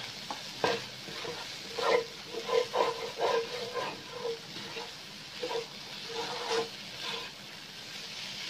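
Spatula scraping and tapping around a stone-coated wok as minced chicken and potato samosa filling is stirred, in irregular strokes that thin out after about seven seconds. Under it the filling sizzles steadily as it fries.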